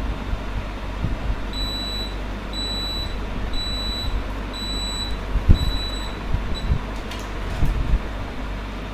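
Electronic beeper giving short high beeps, evenly spaced about a second apart, six times in a row, over a steady low background hum.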